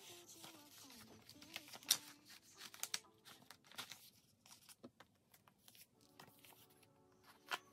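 Paper album posters and a plastic binder pocket page being handled, crinkling and rustling in scattered sharp crackles, the loudest about two seconds in and again near the end.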